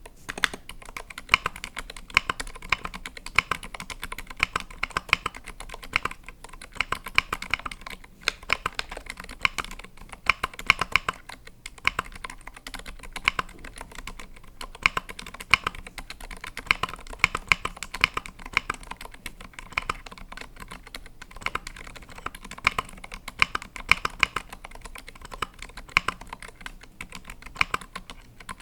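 Steady typing on a KBDFans Tofu65 65% custom mechanical keyboard fitted with Zilent V2 silent tactile switches and lubed stabilizers: quick runs of soft keystrokes with a few brief pauses.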